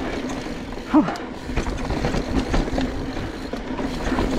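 Polygon Siskiu N9 mountain bike ridden fast down a loose dirt downhill trail: wind rushing over the camera mic, tyres on dirt, and the bike rattling and knocking over bumps. About a second in, a short grunt from the rider.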